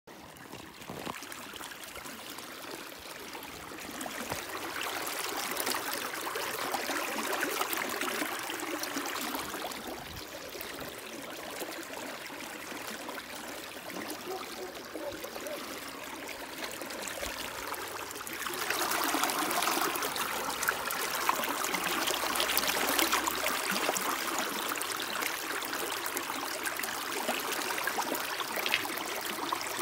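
Irrigation water running in a steady flow, getting louder and rushing harder about two-thirds of the way in.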